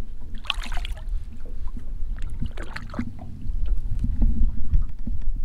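Wind buffeting the microphone in a small rowboat on open water, gusting stronger from about three and a half seconds in. About half a second in there is a brief splash as a fish is let go over the side, with a few light knocks.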